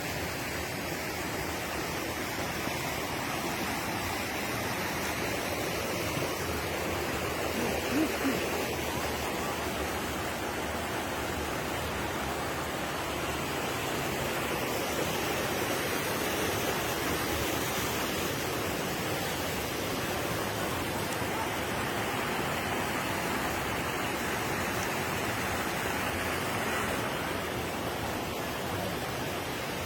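Water rushing steadily down a waterfall and over the rocks of its stream bed, with a brief louder sound about eight seconds in.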